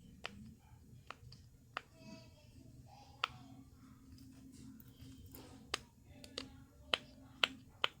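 Silicone bubbles of a mini keychain pop-it being pressed in one by one: about ten sharp little pops, irregularly spaced, coming faster in the second half.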